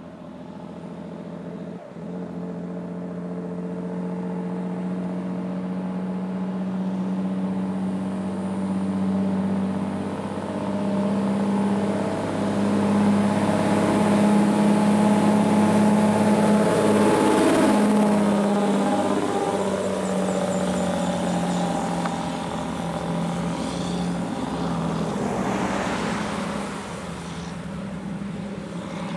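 Diesel engine of a loaded Hino 700 log truck pulling up a steep hill road, a steady heavy engine note that grows louder as the truck approaches, is loudest about halfway through as it passes, then fades. A car and a motorhome pass close behind it, their tyre and engine sound shifting in pitch as they go by.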